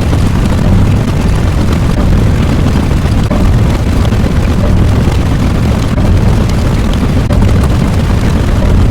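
A loud, continuous low rumble, like a blast or eruption sound effect.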